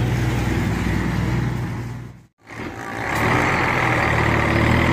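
Heavy truck's diesel engine idling steadily. The sound drops out for a moment just past halfway, then the engine is heard again with a steady high hiss over it.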